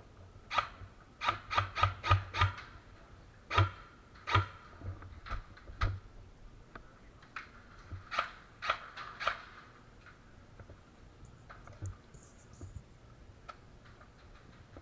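Airsoft gunfire: sharp cracks in quick runs of four or five, then scattered single shots that grow fainter near the end.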